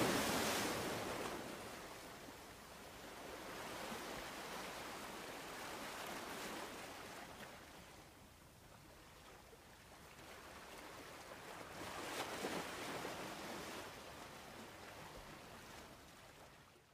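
Open-sea ambience: a rushing noise of waves and wind that swells and fades, loudest at the start and again about twelve seconds in.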